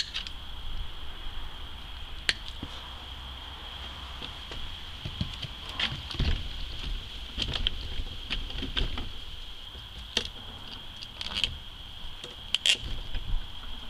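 Irregular clicks and light knocks of pliers, wire links and a wooden bracing bar being worked loose from a bank of small metal-cased paper capacitors, busiest in the middle and again near the end.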